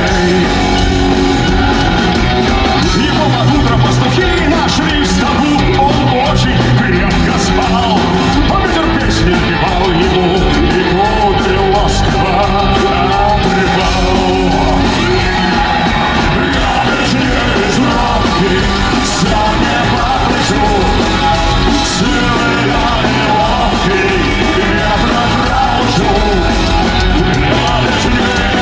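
Live punk rock band playing loudly and steadily, with yells and snatches of singing over the music.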